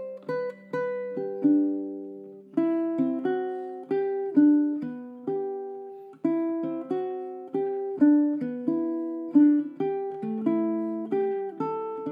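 Maurice Dupont ukulele tuned with a low G string, played fingerstyle: a melody of single plucked notes over a lower bass line, each note ringing and fading.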